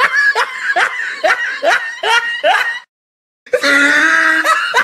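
A dubbed comic laughing sound effect: a run of short snickering laughs, each falling in pitch, about two a second. Partway through it cuts off dead for about half a second, then starts over with a long held note.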